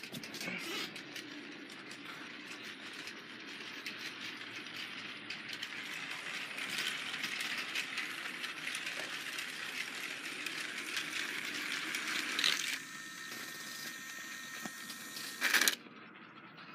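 Trackmaster 2.0 Gordon motorized toy engine running on plastic track, its motor running with a steady rattle of fine ticks from the wheels and gears, which stops about thirteen seconds in. A short clatter comes near the end.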